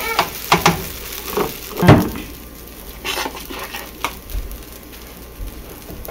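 Food sizzling in hot cooking oil, with scattered knocks and scrapes of a cooking utensil and one louder thump about two seconds in.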